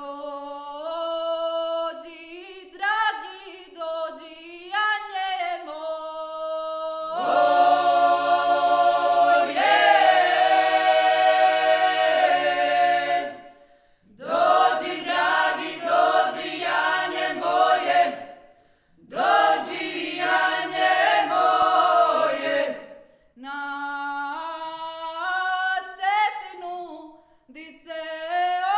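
Small vocal ensemble singing a cappella in close harmony. Upper voices sing alone at first, and a low part joins about seven seconds in. The full group then sings three phrases with short breaks between them, and the upper voices carry on alone near the end.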